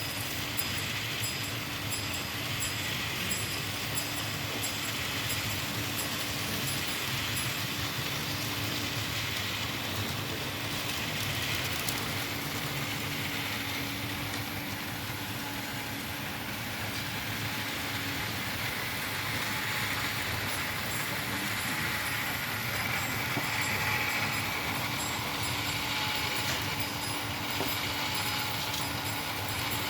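Small electric motors running and whining over a steady hum, with the whine swelling and easing off about two-thirds of the way through.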